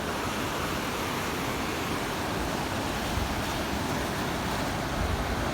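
Ocean surf washing steadily on a beach, heard as an even rushing noise with some wind.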